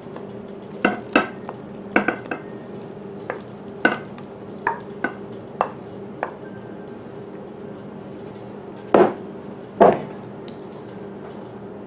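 A spoon scraping thick batter out of a glass mixing bowl into a glass loaf pan, giving irregular clicks and knocks against the glass, with two louder knocks near the end as the batter is spread in the pan. A steady low hum runs underneath.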